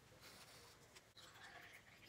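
Near silence: faint room tone with soft, scattered rustles.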